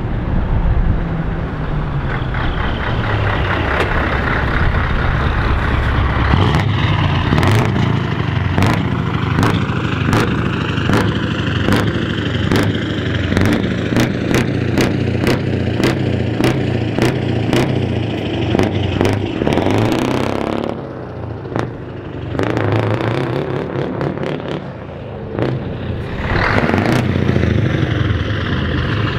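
A Scania 4-series truck's diesel engine running loud as the truck drives slowly past close by. Through the middle there is a regular ticking, about one and a half clicks a second. The sound drops for a few seconds near the end, then rises again.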